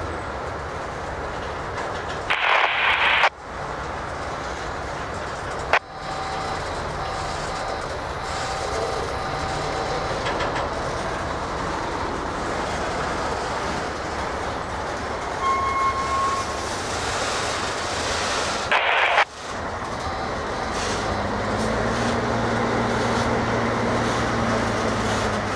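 Multi-level autorack freight cars rolling past, a steady rumble and rattle of steel wheels on the rails. Two brief louder bursts of noise come about two seconds in and again about two-thirds of the way through.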